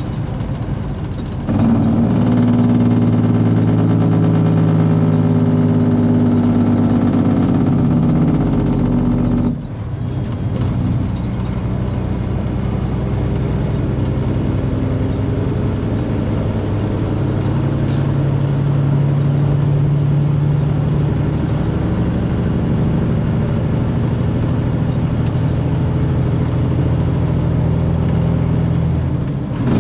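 Semi truck's diesel engine running steadily while driving, heard from the cab, with abrupt changes in its note about one and a half and nine and a half seconds in. A faint high whine rises about ten seconds in and then holds.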